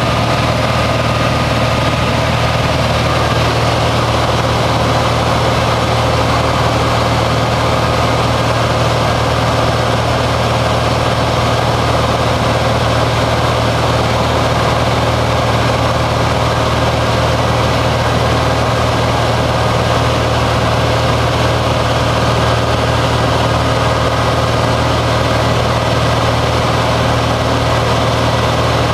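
Single-engine light aircraft's engine and propeller in flight, heard from inside the cabin: a loud, steady drone that does not change.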